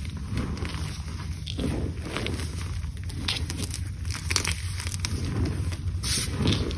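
Hands crushing and crumbling blocks of gym chalk in a bed of cornstarch: soft crunching with many small, irregular crackles, over a low steady rumble.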